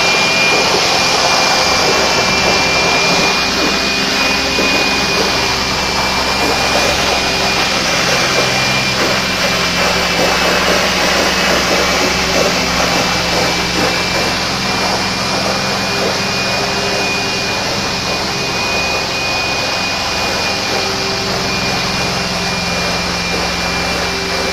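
Hard-surface spinner tool on a vacuum wand cleaning tile and grout: water jets spraying under the spinning hood while the extractor's vacuum sucks up the dirty water, a steady loud hiss and suction with a thin high whine.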